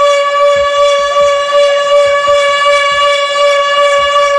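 Siren labelled the Siro Drone holding one steady, droning tone with many overtones, with almost no rise or fall in pitch.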